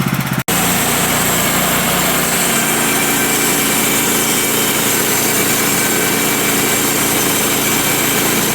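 Bandsaw sawmill slicing through a large pine log: the engine runs steadily under load beneath the even hiss of the blade cutting the wood. It starts abruptly about half a second in.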